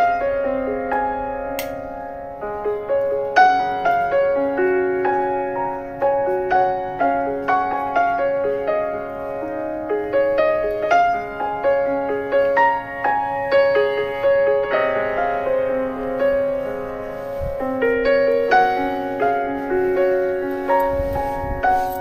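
Background instrumental music with a piano melody of distinct notes.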